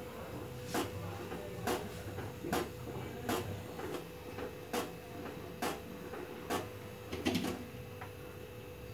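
Silicone spatula stirring milk and sugar in a nonstick kadhai, scraping the pan in short strokes about once a second, over a steady faint hum.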